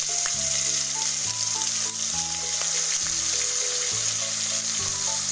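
Koi fish (climbing perch) frying in hot oil in a kadai: a steady, loud sizzle.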